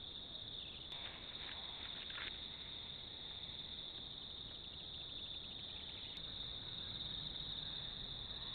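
Steady high insect chirring, like a cricket chorus, picked up by a trail camera's microphone and running on unbroken through the joins between clips.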